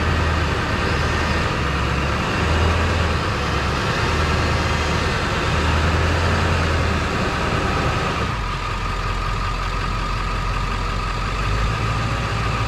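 Truck engine running, its low hum stepping up and down, then changing abruptly about eight seconds in to a lower, steadier hum.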